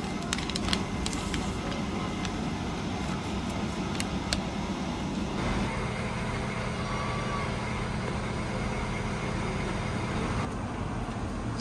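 A paper omikuji fortune slip crinkling as it is unfolded, a few sharp crackles in the first few seconds, over a steady low rumble.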